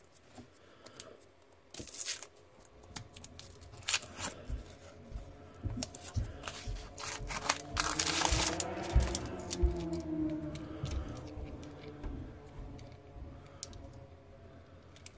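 The paper wrapper of a roll of 20-cent coins being torn open by hand: a few scattered clicks, then a louder stretch of tearing and crinkling paper from about seven and a half to ten seconds in.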